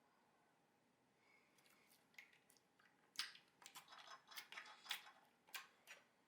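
Slime being handled by hand: quiet at first, then about three seconds in a run of sharp crackling pops and clicks for a few seconds.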